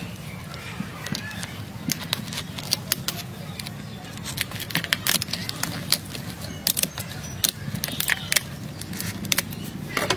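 Scissors cutting through the shell of a cooked lobster tail: an irregular run of sharp cracks and clicks, thickest from about four to nine seconds in, over a low steady hum.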